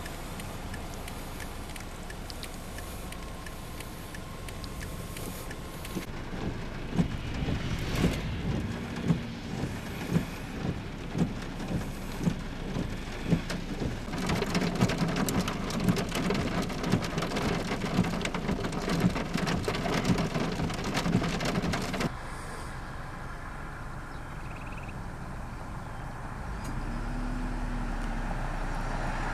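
Heavy rain in a hailstorm. A run of loud, sharp knocks of hailstones striking a hard surface gives way to a dense clatter, which cuts off abruptly to a quieter, steady rain hiss.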